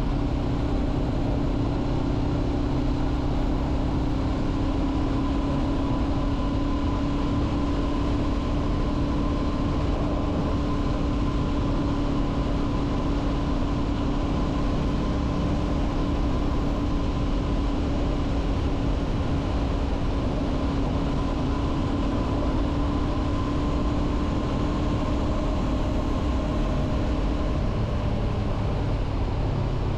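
2023 Honda CB500F's parallel-twin engine running at a steady pitch while riding, with a rushing noise of wind and road underneath. Near the end the engine note drops to a lower pitch.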